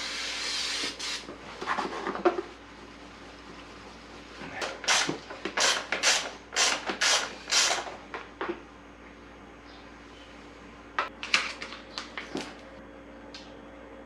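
Hands working vinyl dirt-bike graphics stickers: a rasping rustle at the start, then a run of about seven short rubbing strokes, and a few light clicks and knocks near the end.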